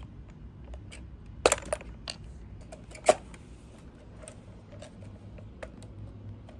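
Plastic clicks and snaps as the clips of a fuel pump module are pried apart with a flathead screwdriver. The two loudest snaps come about a second and a half and three seconds in, among lighter ticks.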